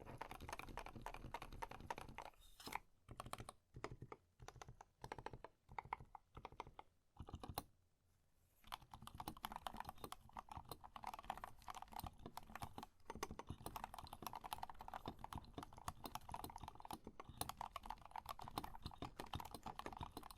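Typing on a Tokyo60 mechanical keyboard with Gateron North Pole 2.0 Yellow linear switches: rapid keystroke clacks, first in short bursts with brief pauses, then unbroken fast typing from about nine seconds in.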